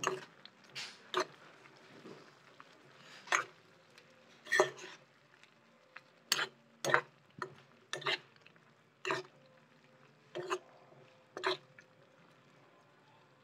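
Spatula scraping and knocking against a wok while stir-frying vegetables and shrimp: about a dozen short, sharp strokes at irregular intervals, stopping near the end.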